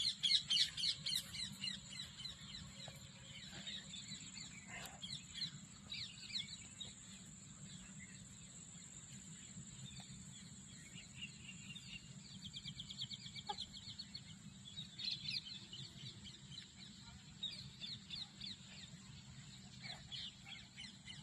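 Birds chirping in quick repeated runs of high notes, loudest at the start and again about halfway through and near the end, over a steady thin high-pitched whine.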